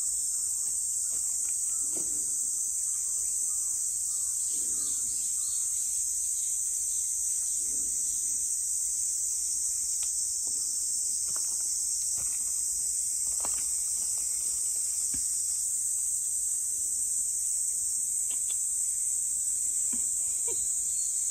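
A steady high-pitched insect chorus, with faint scattered rustles and crunches of cats chewing and pawing in dry leaf litter.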